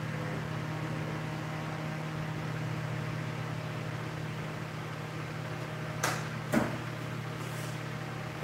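Steady low hum, with two sharp clicks about six seconds in from small tools or parts being handled on the workbench.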